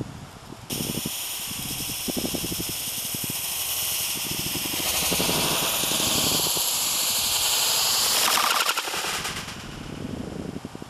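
Homemade fuse rocket (visco fuse wrapped in aluminium foil) burning as it lifts off: a loud, rapidly crackling hiss that starts suddenly about a second in, holds for about nine seconds and fades near the end.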